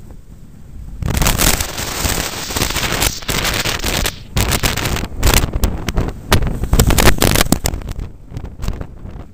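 Wind buffeting the microphone and the rumble and clatter of a steel roller coaster train speeding down a drop, after a quieter moment at the crest; it gets loud about a second in.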